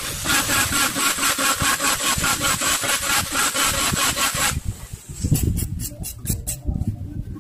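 A small hand-held blade sawing through the wall of a PVC pipe in quick, even rasping strokes, about five a second. The strokes stop about four and a half seconds in, giving way to low knocks and a few scrapes as the pipe is handled.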